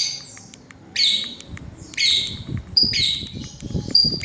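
Lovebird giving sharp, high 'cit cuit' chirp calls, about one a second, five in a row: the call used to get other lovebirds to answer.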